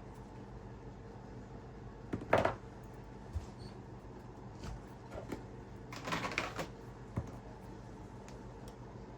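Scattered small clicks and taps of tools and smartphone parts being handled during a phone repair, the loudest about two seconds in and a quick cluster about six seconds in, over a steady low electrical hum.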